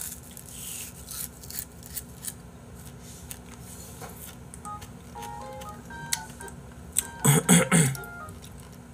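Faint clicks and rustling from a paper tissue being handled. About halfway through comes a run of short, soft beeping tones, and a brief voice sound comes near the end.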